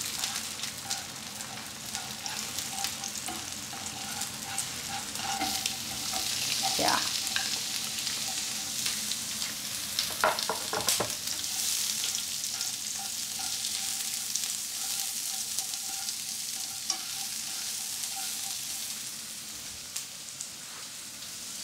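Scrambled egg and sliced onion sizzling in hot oil in a nonstick frying pan, stirred now and then with wooden chopsticks that scrape and tap the pan. The sizzle swells about six seconds in.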